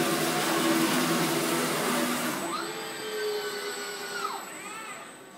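Fanuc R2000iB/165F industrial robot in motion: a loud steady rushing noise for about the first two and a half seconds, then the servo drives' whine rising in pitch, holding and falling away as the arm speeds up and slows to a stop.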